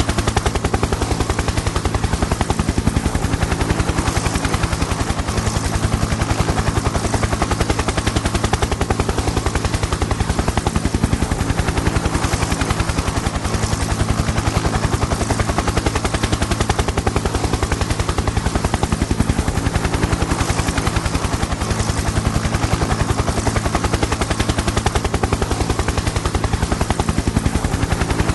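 Helicopter in flight, its rotor blades making a rapid, steady chop over the drone of the engine.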